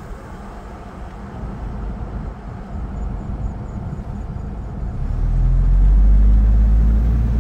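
Car driving along a road, heard from inside the cabin: steady engine and road rumble. About five seconds in it grows louder and a steady low engine hum comes in.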